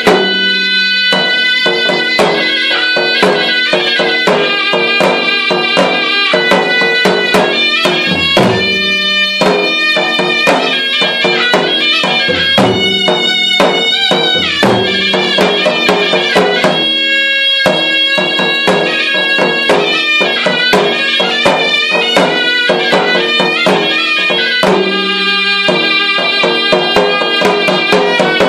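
Malay gendang keling ensemble playing: a serunai, a double-reed pipe, carries a continuous melody over fast, steady strokes on two double-headed barrel drums (gendang), with a few deep gong strokes.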